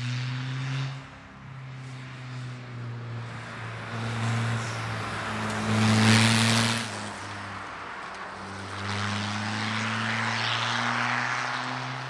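VW Golf II's turbodiesel engine running hard through a slalom course, its note rising and falling as the driver accelerates and lifts. It is loudest as the car passes about six seconds in, and a longer pull follows, with a rushing noise on top, before it fades near the end.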